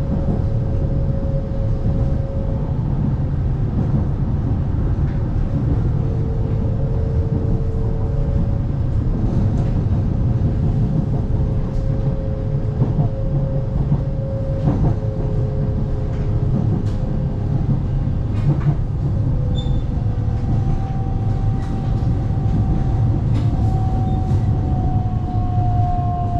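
Dalian Metro Line 12 train running, heard from inside the passenger car: a steady low rumble of wheels on rail with a faint whine that drifts slowly up and down in pitch.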